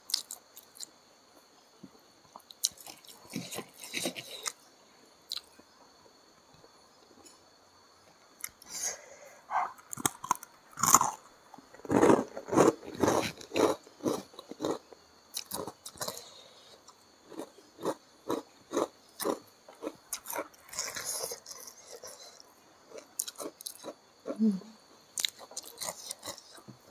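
A person chewing and biting a mouthful of rice and food eaten by hand: wet mouth sounds and short clicks, sparse at first, then steady chewing at two or three chews a second through the middle, tailing off near the end.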